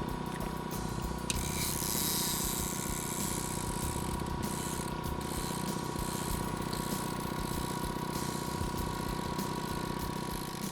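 Line-counter trolling reel's clicker ratcheting as a planer board pulls line off the spool, over a steady motor hum.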